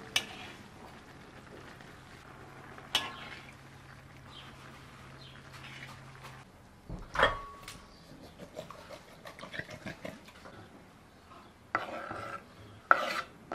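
Metal spoon stirring greens and meat in a wide pan, with scattered clicks, one loud clank with a brief ring about seven seconds in, and a run of small clinks after it. Near the end, chopped onion is scraped off a wooden cutting board into a glass bowl with a couple of sharp knocks.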